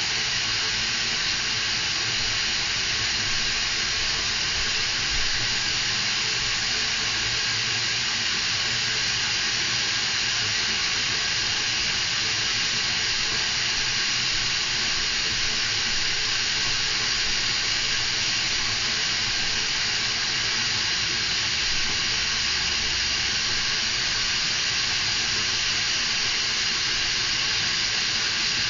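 Bathtub mixer tap running a thin, steady stream of water into a partly filled tub: a constant splashing hiss that never changes.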